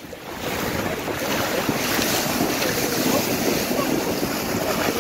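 Sea waves breaking over a harbour pier's wall and seawater rushing and splashing across its flooded top. The rush swells up about half a second in and then holds steady.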